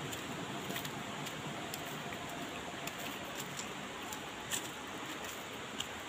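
Steady rushing of river water, with a few faint crunches of footsteps on dry leaf litter.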